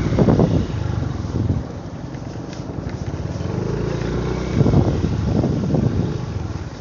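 A motor engine running steadily, with short pitched, wavering sounds over it at the start and again about two-thirds of the way in.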